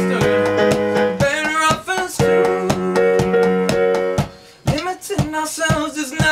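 Live electronic pop music: keyboard synthesizer chords over a steady percussive beat, dropping out briefly about four seconds in.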